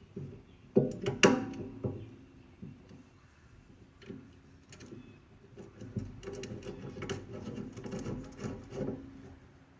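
Metal clanks and knocks from hand work on disc brake hardware, one strike ringing out about a second in, then a stretch of rattling and clattering of parts and tools.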